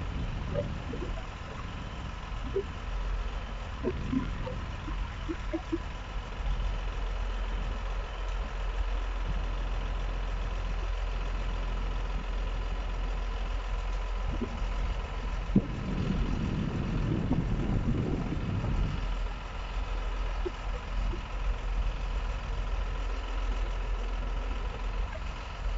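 Flatbed recovery truck's diesel engine running steadily, powering its crane while a car hangs from the lifting frame. One sharp knock comes about halfway through, and the engine grows louder for a few seconds after it.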